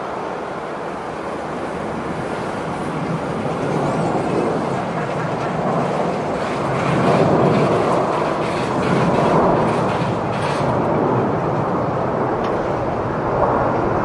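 Airbus A350 airliner's Rolls-Royce Trent XWB jet engines at takeoff thrust: a steady roar that grows louder through the first half as the aircraft rolls down the runway.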